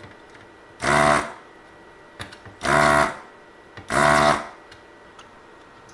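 Vacuum desoldering tool's pump buzzing in three short bursts of about half a second each, sucking solder off a chip's pins on the circuit board.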